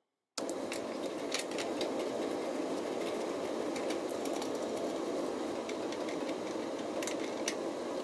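A steady mechanical hum, with a few light metallic clicks and taps as a wrench and fittings are handled at a gas water heater's control valve and thermocouple tubing.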